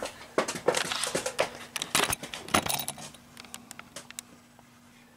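Small hard parts clinking and clicking as they are handled: a busy run of sharp clicks and jingles for about three seconds, then a few fainter ticks.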